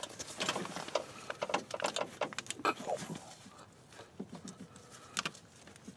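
Irregular light clicks, knocks and rustles of hands working among engine-bay wiring and corrugated plastic loom, tugging at a small wire connector, busiest in the first few seconds with a few more near the end.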